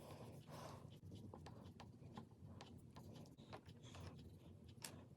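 Faint crayon strokes rubbing on paper while a drawing is coloured in, with a scatter of light ticks.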